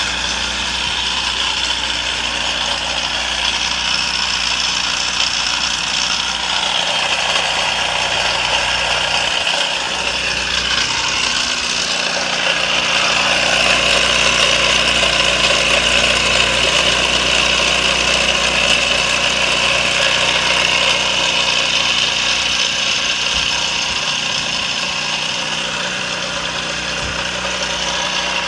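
Small propane-fuelled GEET engine running steadily, growing louder for several seconds from about twelve seconds in, then settling back.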